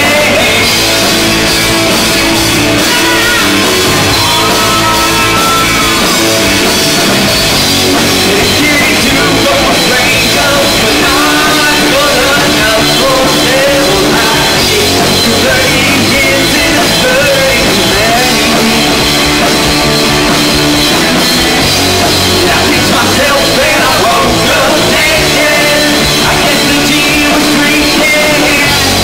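A live rock band playing loudly and steadily: electric guitars, electric bass and a drum kit, with a lead vocal sung over them.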